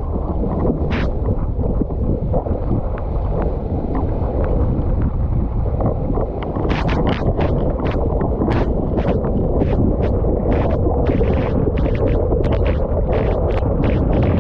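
Wind buffeting the microphone of a camera mounted on a windsurfing rig, a steady low rumble, with water splashing and spraying against the board, the splashes coming thick and fast from about halfway through.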